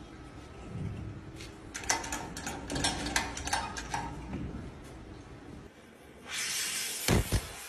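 Scattered metallic clicks and knocks from handling tools and parts, then about six seconds in a loud steady hiss starts, with two sharp knocks a second later.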